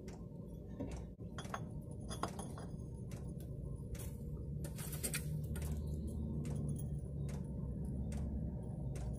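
Scattered light metallic clinks and scrapes as the gearbox's output flange is pushed by hand onto the splined output shaft of a Turner T5A gearbox, over a steady low hum.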